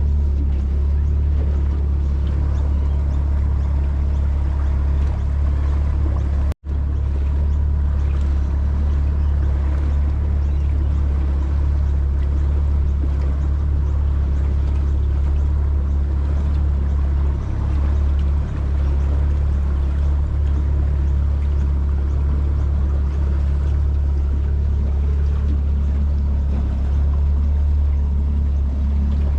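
Small fishing boat under way, its motor running steadily with a loud low rumble. About six and a half seconds in, the sound cuts out for a split second.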